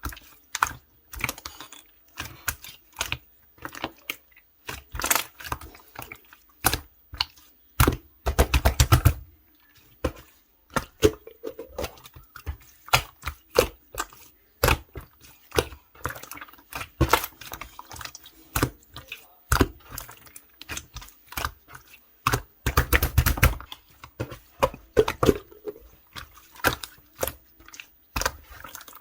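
Clear green slime being squished and pressed by hand, making a run of sharp little clicks and pops of trapped air, with denser crackling stretches about eight and twenty-three seconds in.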